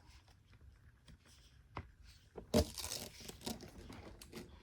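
A Bissell CleanView upright vacuum's hose and plastic parts being handled and fitted back in place: a few small clicks, a louder plastic knock about two and a half seconds in, then rustling and scraping.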